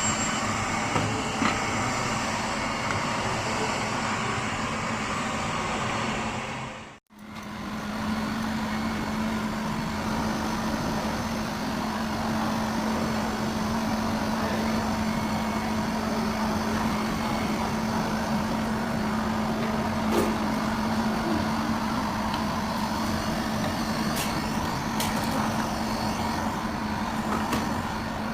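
Lefant M300 robot vacuum cleaner running: a steady whir with a constant low hum. The sound cuts out for a moment about seven seconds in, then carries on unchanged.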